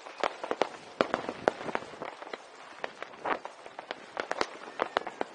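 Fireworks and firecrackers going off: a dense, irregular string of sharp bangs, several a second, some loud and close, others fainter, over a continuous background crackle.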